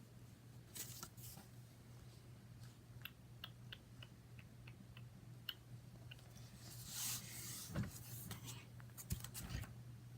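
Faint rubbing and rustling with scattered light clicks from hands handling a foam squishy toy, a few soft thumps near the end, over a low steady hum.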